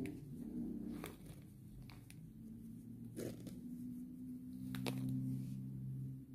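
Faint scattered clicks and crinkles as crochet work on a plastic jar is handled, over a low steady hum.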